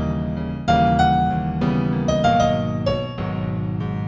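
Gentle new-age piano music in F major: a slow melody of held notes stepping over sustained chords that change every second or so.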